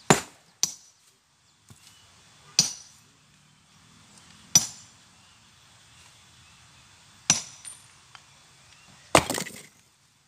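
Hammer striking boulders to split the stone by hand: a series of sharp, ringing clinks of metal on rock, spaced one to three seconds apart, then a longer, rougher clattering crash near the end.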